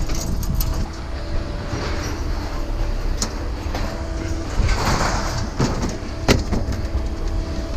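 A steady low rumble of a running vehicle or engine, with faint steady tones. A few sharp knocks and rattles come in the second half.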